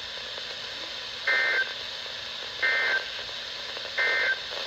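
Weather radio playing three short bursts of warbling digital data tones, about a second and a third apart, over steady static hiss: the EAS SAME End-of-Message code that closes an alert broadcast.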